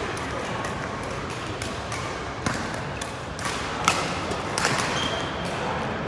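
Badminton rackets striking shuttlecocks: sharp cracks at irregular intervals from several courts, the loudest about four seconds in, over the steady background noise of a large sports hall.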